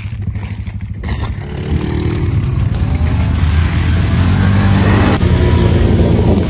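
Quad bike (ATV) engines revving hard, the pitch climbing as they accelerate, with the hiss of tyres throwing snow.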